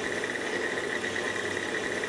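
Electric stand mixer running steadily, its beater churning cream as it thickens into ice cream, with a steady high whine over the motor's hum.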